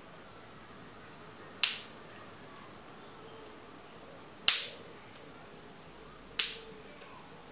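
Metal snap clips on a clip-in hair extension snapping shut into the hair: three sharp clicks, about two seconds apart.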